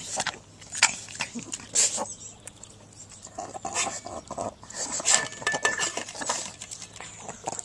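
A pug eating with difficulty, the eating difficulty linked to brachycephalic obstructive airway syndrome (BOAS): a run of irregular clicks and crunching sounds, with busier, noisier stretches in the middle.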